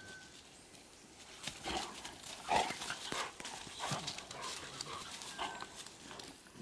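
Two dogs play-fighting: a tan dog and a beagle puppy scuffle and paw about in dry leaf litter, with brief dog vocal noises among the scuffling. The loudest sound comes about two and a half seconds in.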